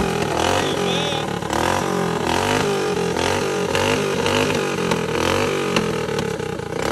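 Mini bike engine revved again and again, its pitch rising and falling about once a second.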